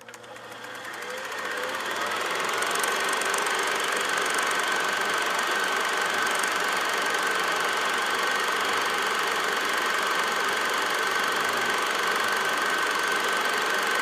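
A steady, engine-like drone with a thin high whine on top, fading in over the first two seconds and then holding level.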